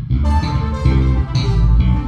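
Live band playing at a sound check, a deep electric bass line in front with a drum kit and cymbals hitting several times a second.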